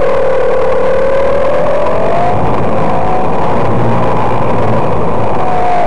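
Radio-controlled T-28D Trojan model airplane in flight, heard from on board: its motor and propeller drone with a pitch that sits low at first, rises about two seconds in, then holds steady. Loud wind rush on the microphone runs underneath.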